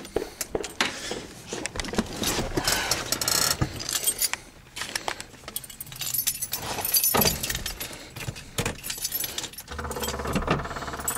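Keys jangling and clicking, with rustling and knocks as someone settles into the driver's seat of a Volkswagen Beetle. About ten seconds in, an even, rapid mechanical rattle starts: the starter cranking the cold engine.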